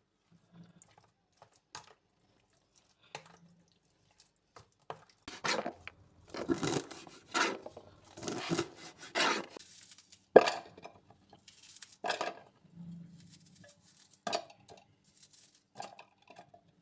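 Kitchen dishes and utensils being handled: scattered clinks, scrapes and knocks, with one sharp knock about ten seconds in as the loudest.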